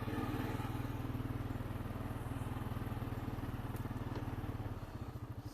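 Honda Rancher 420 ATV's single-cylinder engine running steadily under way with an even, fast pulse, easing off a little near the end.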